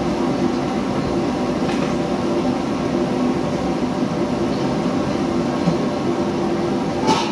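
Steady hum and rush of a commercial kitchen's extraction hood fan and gas wok burner. Two brief clanks of a utensil against the wok, one about two seconds in and one near the end.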